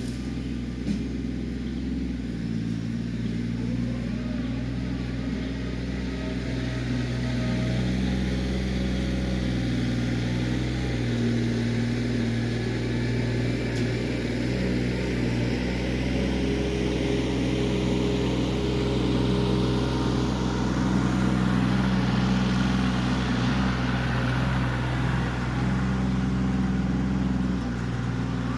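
Kioti CK20S compact tractor's diesel engine running steadily under backhoe work, its note shifting every few seconds as the hydraulics take load.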